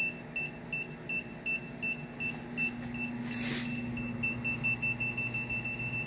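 Multi-Fields EMF meter's alarm beeping in short, high, same-pitched beeps, about three a second, coming faster in the second half as the meter is brought close to a running microwave oven and reads in its extreme range. The running microwave oven hums low and steady underneath, with a brief rustle about halfway through.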